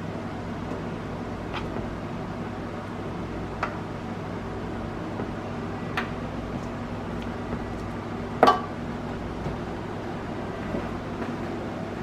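Garlic cloves set down one by one on raw steaks in a metal baking pan, giving a few light clicks, with one louder knock about eight and a half seconds in. A steady hum of room noise runs underneath.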